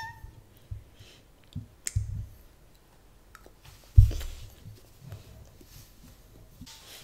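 A metal spoon clinking and scraping against a bowl in scattered light clicks, with a few dull thumps, the loudest about four seconds in.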